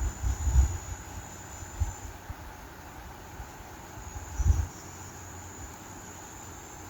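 Insects, crickets or similar, trilling steadily in a high pitch, with a few brief low thumps of wind buffeting the microphone about half a second in, near two seconds and again a little after four seconds.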